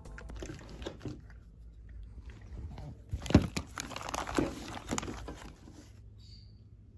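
Clear plastic kit bags crinkling as they are handled, with several knocks and one sharp thump about three and a half seconds in. It goes quieter near the end, with a few faint high chirps.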